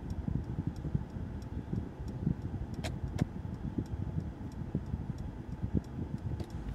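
Low rumble of a car, with a light regular ticking about three times a second and two sharper clicks in the middle.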